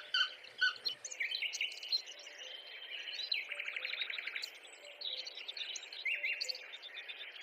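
Birds calling: short chirps in the first second, then repeated buzzy rattling trills, the longest lasting about a second, with higher chirps between them.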